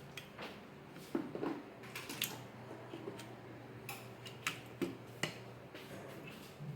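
Irregular light clicks and taps of multimeter test probes and a socket outlet being handled, as the probes are pressed against the outlet's terminals for a continuity check.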